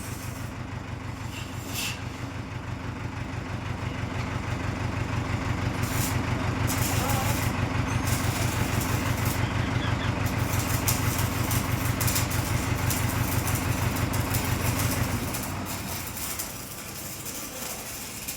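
Diesel engine of a Bobcat 30 compact excavator running with a steady low throb. It builds up over the first few seconds, holds steady, and drops back to a quieter idle near the end.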